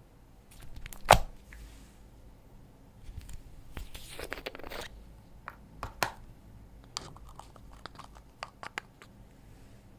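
Slime being handled and mixed with clay: a sharp click about a second in, a crinkly rustle around four seconds, then a quick run of small clicks and pops.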